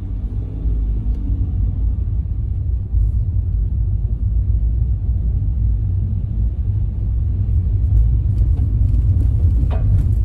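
Low rumble of a car's engine and tyres, heard from inside the cabin, driving slowly over a rough forest road and growing a little louder. Near the end a single short knock, a 'pon', as a fallen twig strikes the car.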